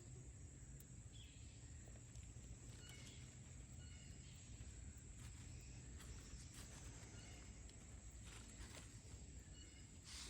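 Near silence: faint outdoor background with a steady low hum and a few soft clicks and rustles.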